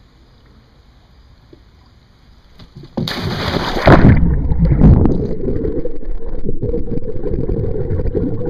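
A person plunging into a swimming pool with a loud splash about three seconds in, followed by heavy churning and gurgling water.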